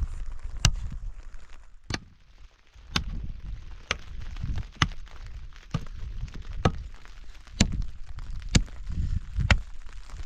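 A hand tool striking over and over, about one blow a second, each blow a sharp crack with a dull thud beneath, like chopping. The blows are briefly interrupted about two seconds in.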